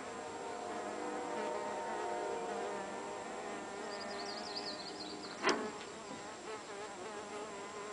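Mason bees buzzing in flight around their nesting tubes: a steady, wavering hum. A brief click about five and a half seconds in.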